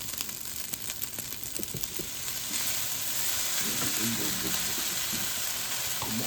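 Fried rice with egg, carrots, sausage and vegetables sizzling in hot oil in a pot, with scattered crackles at first; the sizzle grows louder about two and a half seconds in.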